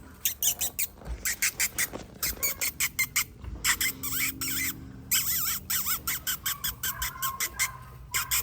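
A litter of five-week-old greyhound puppies squealing and yelping excitedly, many short high-pitched cries overlapping, several a second.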